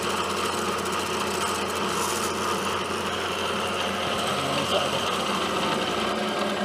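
Milling machine spindle running with a quarter-inch four-flute end mill cutting a pin hole in a steel hub, a steady mechanical whir with a low hum.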